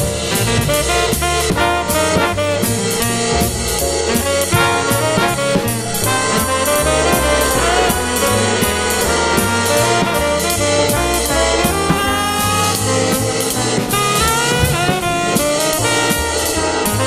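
Jazz play-along: a recorded jazz ensemble with saxophones and brass plays a swinging tune while a live drum kit is played over it, the cymbals keeping a steady beat.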